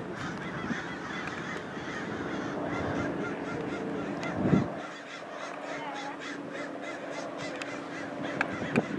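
Birds calling repeatedly over a steady low hum, with a sharp thump about halfway through and two smaller clicks near the end.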